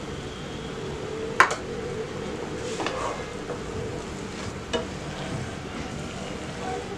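Grape jam bubbling in a frying pan while a wooden spatula stirs it through, with a sharp knock of the spatula against the pan about a second and a half in and a few lighter knocks after.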